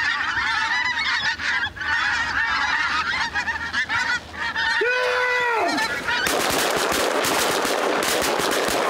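A large flock of pink-footed geese calling in a dense, overlapping chorus of high honks. About five seconds in, one close call stands out. In the last three seconds a loud rushing noise with rapid fluttering covers the calls.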